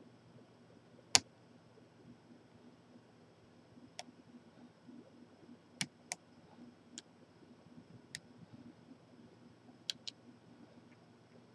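Scattered sharp clicks of a lock pick and tension wrench working the pins of a large Corbin padlock, irregularly spaced, the loudest about a second in. A low steady hum runs underneath.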